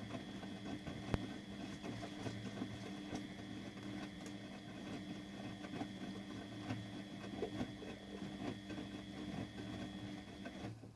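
Siemens Siwamat 870 washing machine's motor turning the drum on a wash cycle: a steady hum with a thin high whine, over irregular soft thuds of wet laundry and water tumbling in the drum. Near the end the motor stops abruptly as the drum pauses.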